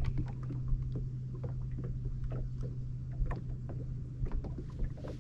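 A steady low hum on a fishing boat, with scattered, irregular light clicks and knocks over it.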